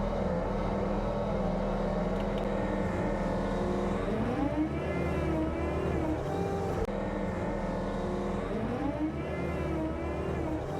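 John Deere 325G compact track loader's diesel engine running steadily, its pitch rising and wavering under load about four seconds in and again past eight seconds.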